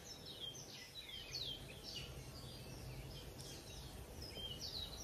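Birds chirping: a run of short, quick calls that each slide downward in pitch, several a second, faint over a low outdoor background hiss.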